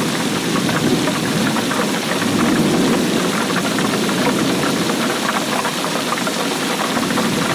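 Steady heavy rainfall: a dense, even hiss of many drops with countless small individual drop ticks.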